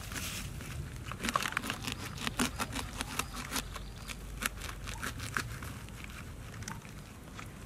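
A green stick scraping and prying inside the cut-open top of a whole jackfruit to hollow it out: a run of short crunching, crackling scrapes that are busiest in the first two-thirds and thin out near the end.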